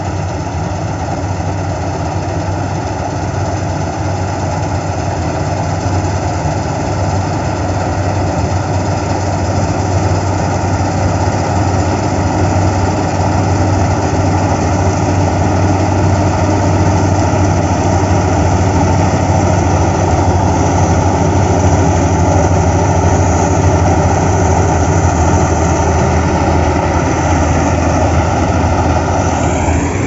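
Kartar 4000 combine harvester running while harvesting: a steady diesel engine drone with a constant low hum, slowly growing louder as the machine comes closer.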